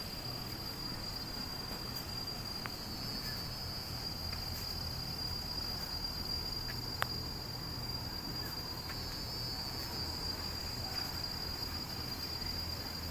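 Crickets trilling in a continuous high, steady chorus that swells louder twice.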